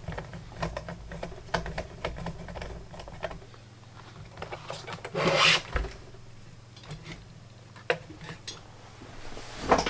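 Steel chassis of a vintage Cossor valve radio being handled and turned over on a wooden workbench: scattered light clicks and knocks, with one longer scraping rub about five seconds in.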